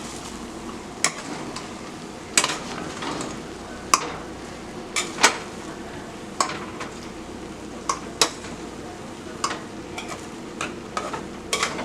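A utensil stirring cooked white rice in a pot, with sharp knocks and scrapes against the pot at irregular moments about every second or so, over a faint steady hiss.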